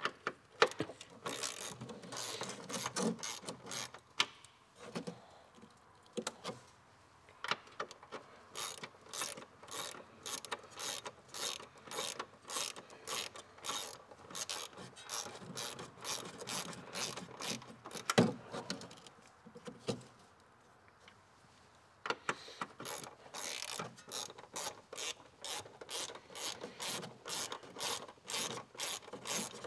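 Hand ratchet clicking in long runs of quick strokes as a fastener is turned, with a short pause about two-thirds of the way through.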